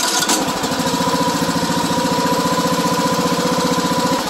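A John Deere riding mower's 17.5 hp Briggs & Stratton engine spinning over under power with a steady, fast, even beat. Its cam's compression release is broken, so the engine won't crank normally unless it is first turned backwards by hand to relieve compression.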